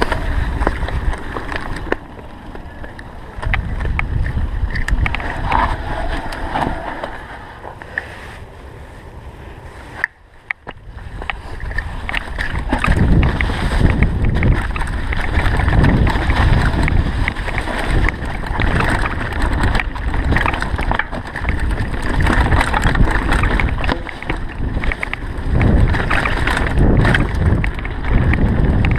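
Wind buffeting the microphone as a low, uneven rumble, with frequent small rattles and knocks; quieter for a stretch in the first third, then loud again.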